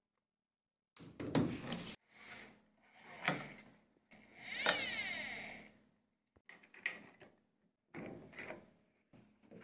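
Plastic and metal handling noises from a washing machine being put back together: short clatters and rubs of the wiring loom and plastic panels, coming in separate bursts. A little after the middle there is a longer swishing run that fades out, as the drum pulley is spun by hand.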